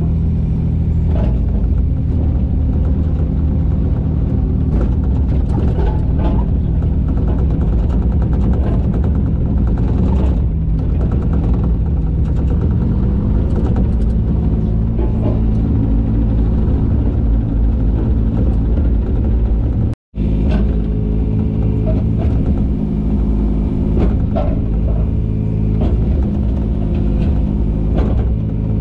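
Takeuchi TB125 mini excavator's diesel engine running steadily while digging, its pitch shifting slightly with the hydraulic load, with occasional knocks from the work. The sound drops out for an instant about two-thirds of the way through.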